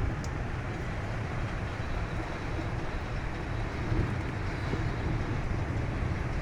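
Rain falling in severe wind: a steady rushing hiss, with gusts buffeting the microphone as an uneven low rumble.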